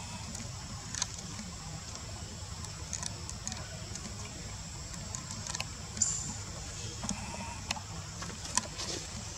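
Outdoor ambience: a steady low rumble and high hiss, with scattered light clicks and rustles of dry leaves and one sharper high sound about six seconds in.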